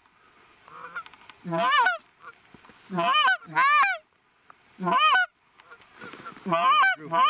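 Canada goose honks: about six loud honks in separate bursts, each breaking from a low note up to a higher one.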